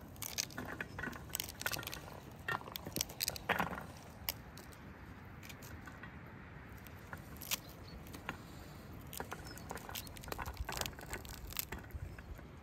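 Pomegranate seeds being broken out of the fruit by hand: irregular small crackles of rind and membrane, with light clicks as the seeds drop onto an enamel tray. The sounds come thickest in the first few seconds and again near the end.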